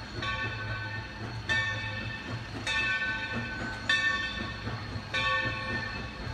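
Steam locomotive's bell ringing, struck about once every 1.2 seconds, each clang fading before the next, over a low steady rumble from the approaching train.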